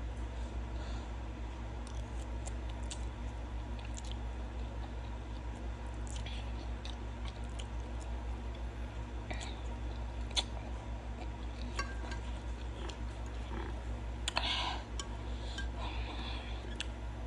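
Close-up eating sounds of a person chewing and slurping 2x spicy noodles, with scattered short wet smacks and clicks and a louder cluster about two-thirds of the way through, over a steady low hum.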